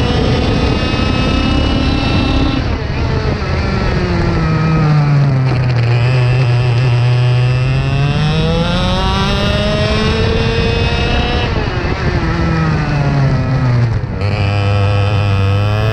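IAME X30 125cc two-stroke kart engine heard from onboard, running hard at racing revs. The revs drop twice as the kart slows into corners and climb again each time as it gets back on the throttle out of them.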